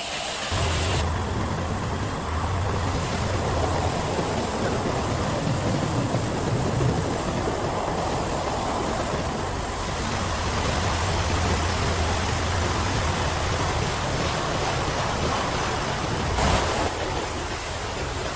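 Pressure washer spraying water against a bus body: a steady, loud hiss of spray with a low hum underneath. The sound shifts abruptly about a second in and again near the end.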